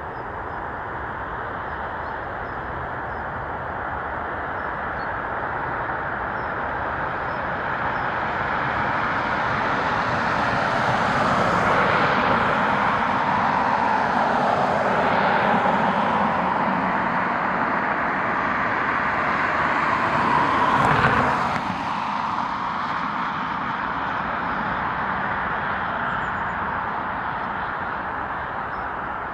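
Jet airliner flying past on its landing approach. The engine rush swells to a peak through the middle, with a sweeping, phasing sound as it passes, then drops away and fades.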